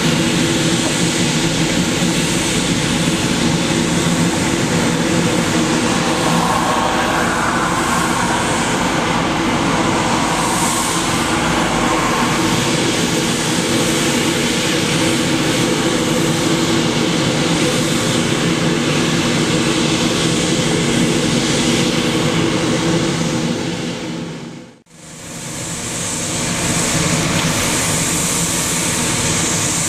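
Scania P94G 310 street-sweeper truck at work: its diesel engine and sweeping gear run in a steady mix of low hum and dense hiss while the rotating side brush sweeps sand off the road. About 25 s in, the sound drops away almost to nothing and swells back.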